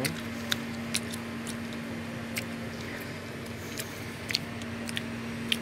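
Scattered, irregular small clicks and ticks of hands working apart a ripe jackfruit and picking out its seeds, over a steady low hum.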